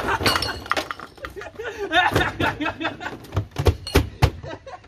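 Excited voices and laughter, with a row of sharp knocks and thumps near the end from the plastic wheelie bin's lid being banged about and shut.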